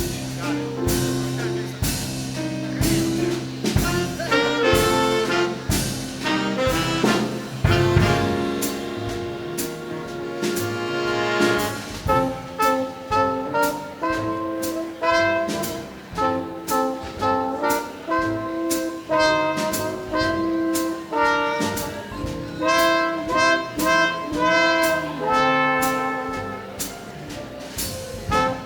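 A big band playing an instrumental swing jazz passage: brass and saxophones carry sustained melody notes over a steady drum beat.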